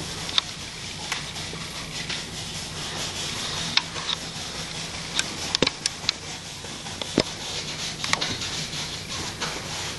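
Paintbrush scrubbing paint onto a canvas, a steady scratchy rubbing, with a few sharp taps scattered through it, several close together past the middle.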